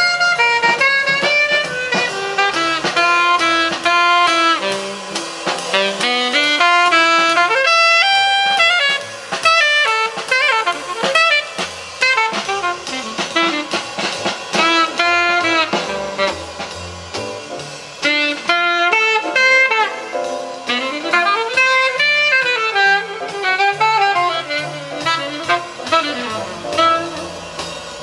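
Recorded music with a melodic lead line over accompaniment, played back through a hi-fi system of a Technics SE-A100 stereo power amplifier driving Dynaco A-10 bookshelf speakers.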